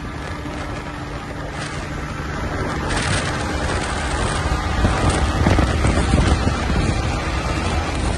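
Wind rushing over the microphone on a moving Yamaha MT-15 motorcycle, with the bike's engine faintly underneath. The rush grows louder through the first half as the bike gets going, then stays steady.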